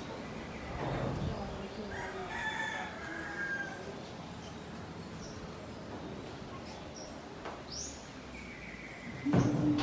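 A rooster crowing once, about two seconds in, over steady background noise.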